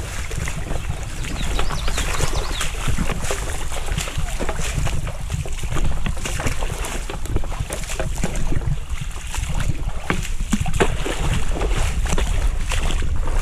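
Wind buffeting the microphone in a steady low rumble, over a hiss with many scattered clicks and crackles.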